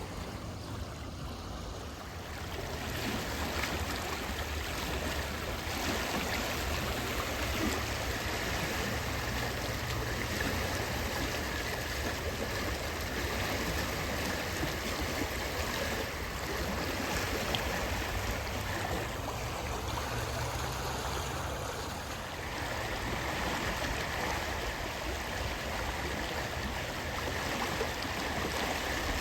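Fast-flowing river water rushing and babbling, a steady noise from the current running high.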